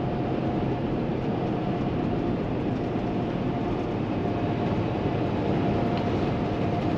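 Inside the cab of a 2016 Kenworth T680 semi cruising at highway speed: steady drone of the Paccar MX-13 diesel and tyre and road noise, with a faint steady whine. An oncoming box truck passes near the end, swelling the noise slightly.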